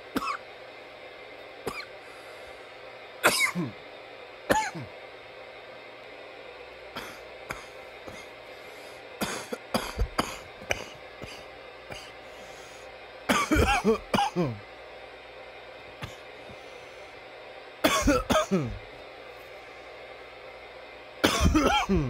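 A man coughing: a few single coughs in the first seconds and a looser run near the middle, then three longer fits of several coughs in a row in the second half.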